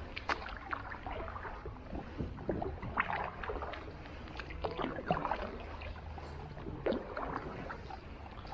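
Small paddled tourist boat on the water: irregular paddle strokes, splashes and knocks against the hull over a steady low rumble.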